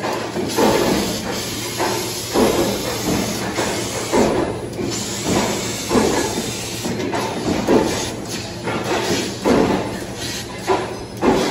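Ironwood IR-3015F fiber laser cutter cutting sheet metal: a steady hiss of assist gas from the cutting head, with irregular louder surges about once or twice a second.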